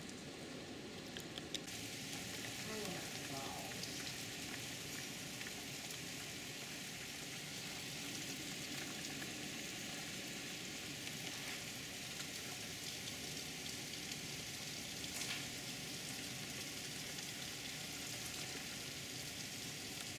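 Heavy rain pouring steadily, a dense even hiss, growing brighter about a second and a half in.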